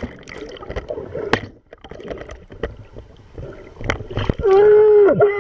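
Underwater sound from a camera just below the surface: bubbling, gurgling and scattered clicks. Near the end come two loud held, voice-like tones with overtones; the first slides down in pitch as it ends.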